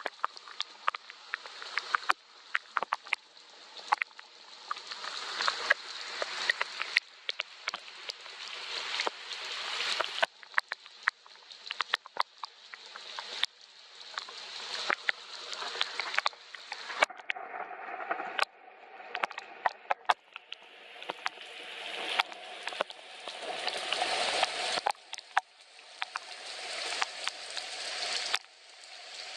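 Rain falling, a steady hiss with many sharp ticks of individual drops striking close by. The hiss swells and drops back every few seconds.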